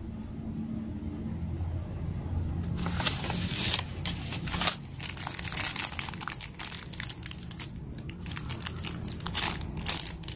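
Thin clear plastic zip-lock bag crinkling as hands handle it, in irregular crackles that begin about three seconds in and go on unevenly.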